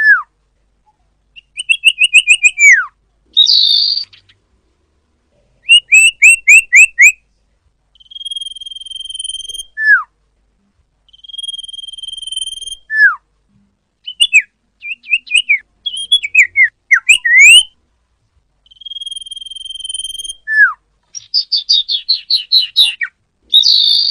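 Sirpu (sirdung) songbird singing a varied, repeating song. It alternates a held high whistle ending in a quick downward slur with rapid runs of short rising chirps and a few harsh, buzzy notes, with short pauses between phrases. This is the kind of recording played to prompt caged birds to sing.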